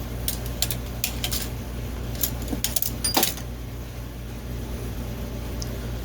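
Several light metallic clinks and taps of tools or metal parts being handled, over a steady low machine hum; one clink about three seconds in rings briefly.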